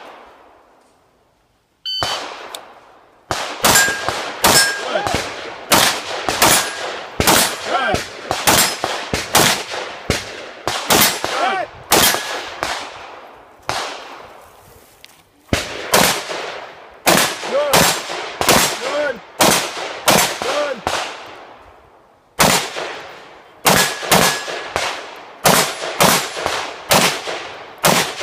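Rapid gunfire in strings of shots, about two to three a second, broken by a few short pauses, with steel targets ringing after many of the hits.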